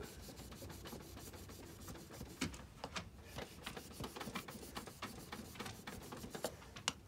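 Quiet, irregular scraping strokes of a Scandi-grind knife bevel being honed on 1500-grit wet-or-dry sandpaper laid over a slurry of grit. The strokes come more often from about two and a half seconds in.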